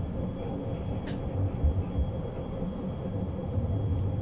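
Tram running on its rails, heard from inside the car: a steady low rumble with a few soft low knocks.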